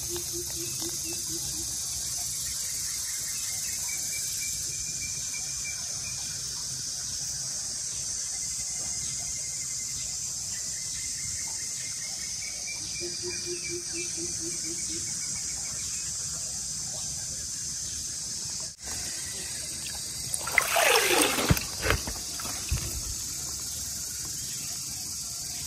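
Steady high-pitched chorus of crickets and other insects, with water trickling. About twenty seconds in, a louder burst of water and handling noise lasts a couple of seconds.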